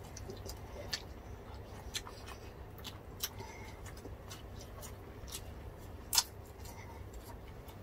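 Quiet eating sounds close to the microphone: sparse small clicks and crunches of chewing, the sharpest about six seconds in, over a low steady hum.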